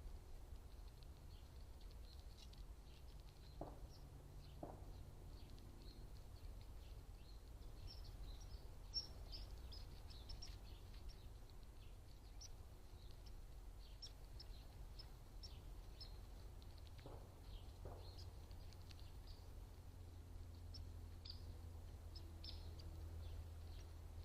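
Small birds chirping faintly with many short, high chirps, over a steady low background rumble.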